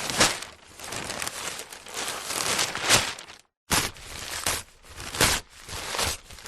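Newspaper being handled, rustling and crinkling in uneven surges with sharp crackles, cut off briefly to silence about halfway through before it starts again.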